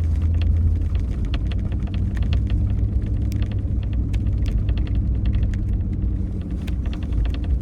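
Pickup truck driving on a fresh snow-covered road: a steady low rumble from the engine and tyres, with many scattered sharp clicks and crackles throughout.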